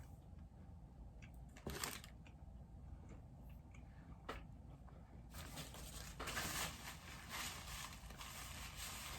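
Close-up eating sounds of a sandwich being bitten and chewed: a few sharp mouth clicks, then from about halfway a longer stretch of crackly chewing.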